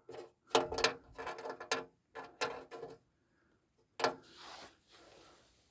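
Clicks and rattles of small metal objects being handled, a quick run over the first three seconds and then one sharper knock about four seconds in.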